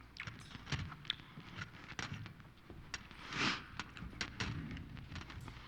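Room noise from a congregation between prayers: scattered small knocks and clicks of people shifting, with one louder rustle or breath about three and a half seconds in.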